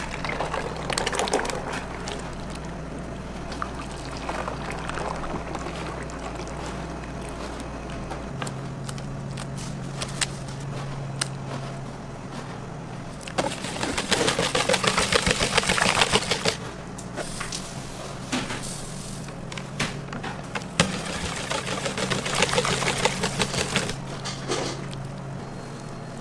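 Liquid batter mixture poured into a large stainless-steel bowl near the start. Then a wire whisk beats it, with rapid clattering and swishing against the steel in two spells of a few seconds each, over a steady low hum.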